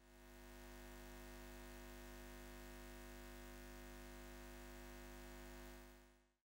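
Faint, steady electrical hum with many fixed overtones, fading in at the start and fading out about six seconds in.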